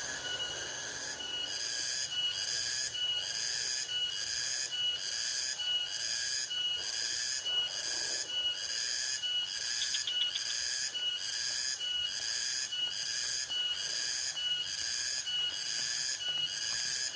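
Nocturnal rice-field insects calling: a high-pitched pulsing chorus that sets in about a second in and repeats about twice a second, over a steadier, lower chirping of other insects.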